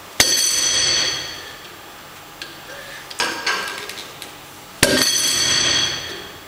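Two loud metallic clanks about four and a half seconds apart, each ringing on for about a second, from the iron weight plates and loading pin hung on a Rolling Thunder grip handle as the load is lifted and set down. Lighter clinks of the plates and handle come between them.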